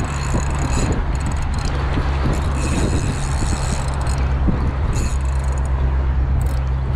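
Wind buffeting the microphone in a steady low rumble, with sea waves splashing.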